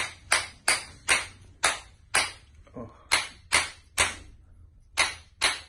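Chiropractic adjusting hammer striking in a quick series of about a dozen sharp taps, roughly two to three a second, with a brief pause near the end.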